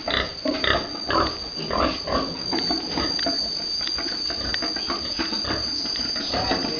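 Pigs grunting, a string of short grunts in the first few seconds followed by a denser run of grunting.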